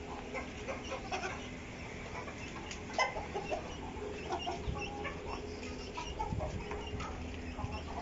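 Several chickens clucking in short, scattered calls, the loudest about three seconds in, over a faint steady hum.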